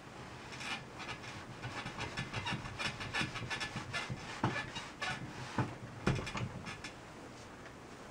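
Clothes iron pushed and pressed over satin fabric on a padded ironing board, with stiff fabric rustling and crackling under the hands. There are a few knocks of the iron on the board, the loudest about six seconds in, and the sound dies down near the end.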